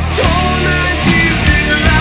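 Slow doom metal played by a band: heavy distorted guitars and bass with drums, and a male voice singing a long line with wide vibrato.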